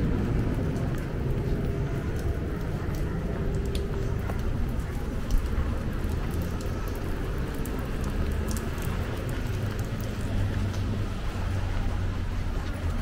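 Rain falling in a city street, with many small, scattered drop ticks over a steady low rumble of traffic.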